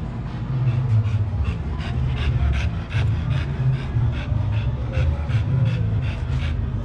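A dog panting, about three quick breaths a second, over a steady low rumble.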